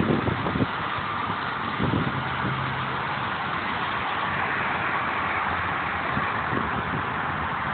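Steady noise of road traffic, with a few low wind thumps on the microphone.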